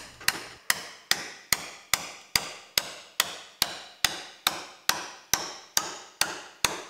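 Hammer striking a metal fastening rod to drive it through a wooden boat's new stem into the apron. Steady, even blows, about two and a half a second, each with a short ring, stopping just before the end.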